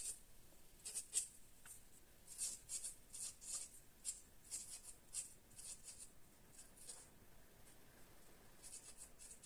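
Marker pen scratching on a masking-tape label as a date is written: short, faint strokes in several bursts with pauses between.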